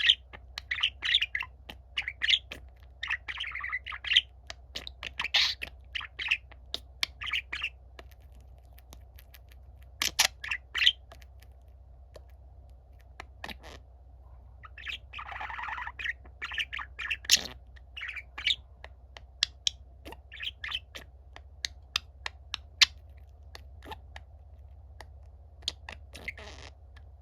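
Budgerigar warbling song: irregular bursts of quick chirps and chatter, pausing and resuming, with sharp clicks between phrases over a steady low hum.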